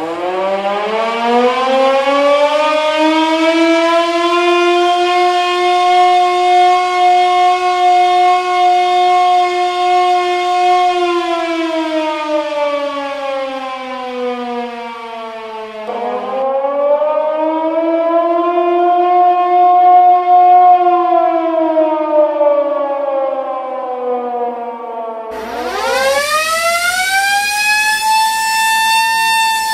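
A siren wailing: its pitch winds up over a few seconds, holds, and winds down, twice, then rises again quickly and brighter near the end.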